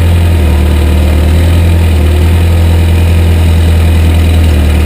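Caterpillar 428B backhoe loader's diesel engine running steadily at idle, a loud, even low hum.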